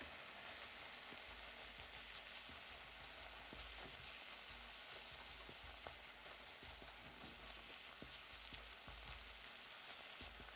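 Tofu, mushroom and onion filling sizzling faintly and steadily in a nonstick frying pan, with soft scrapes and ticks from a silicone spatula stirring it.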